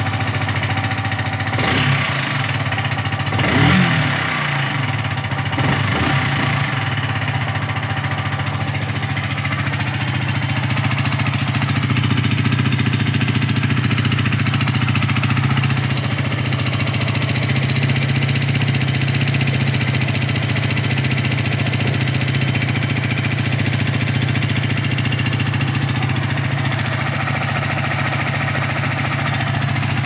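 Yamaha R15 V3's single-cylinder four-stroke engine running just after a start, with a few brief rises and falls in revs in the first several seconds, then a steady idle. It carries a knocking that the owner puts down to the rocker arm hitting the camshaft, a fault he says calls for replacing the parts.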